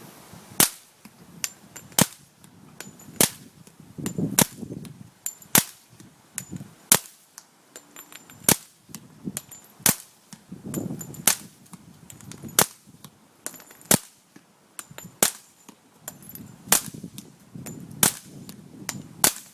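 Steady string of suppressed gunshots through an IMG suppressor, about fifteen sharp cracks spaced roughly a second and a bit apart, some followed by a brief high ring.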